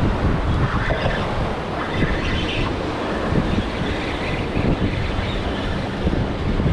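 Wind buffeting the camera microphone over the rush of rough, choppy inlet water and surf.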